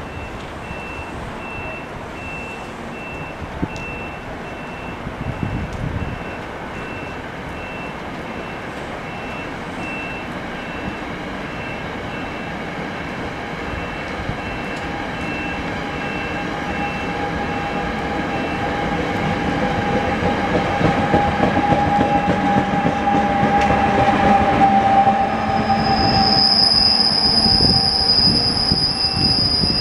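NJ Transit push-pull commuter train with an ALP-46A electric locomotive running along the station platform, growing louder with a steady whine, probably from the locomotive's traction motors. Near the end the wheels start a high-pitched squeal.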